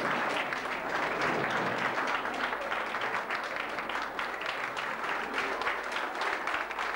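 A standing audience applauding: a steady round of many hands clapping.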